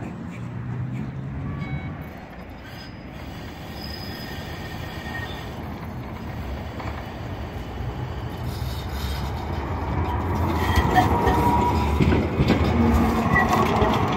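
PESA 121N three-section low-floor tram approaching on curved track and passing close, its rumble growing steadily louder through the second half. Near the end the wheels squeal briefly on the curve.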